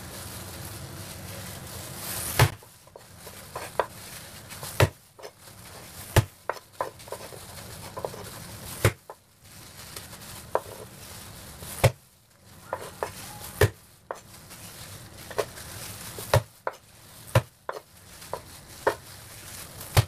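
Pieces of unpeeled ginger being smashed flat (geprek): about nine sharp, loud knocks at uneven gaps of one to three seconds, with lighter taps in between.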